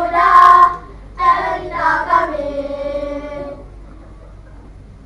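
Children singing together, a sung phrase with a brief break near the start, ending on a held note that fades out about three and a half seconds in, followed by a pause.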